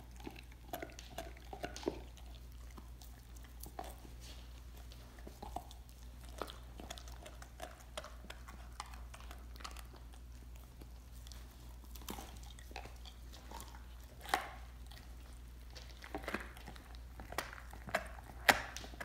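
Dog gnawing and chewing a raw lamb leg bone, with irregular sharp clicks and cracks of teeth on bone. The loudest cracks come in the last few seconds.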